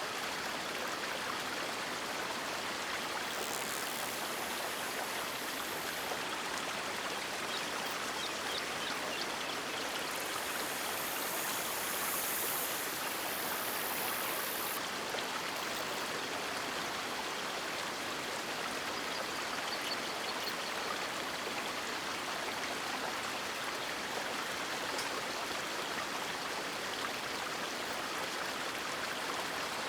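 River water rushing and splashing in a steady, unbroken flow. A fainter high hiss comes and goes twice.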